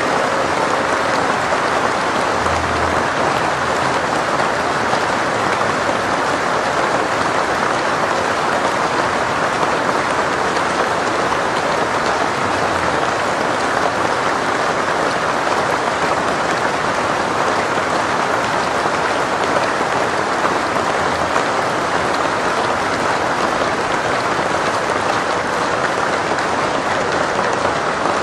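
Large audience applauding: dense, steady clapping with no let-up.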